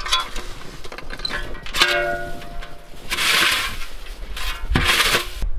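Shovel scraping and scooping snow in three main strokes, about two, three and five seconds in, the first with a brief ringing squeal from the blade.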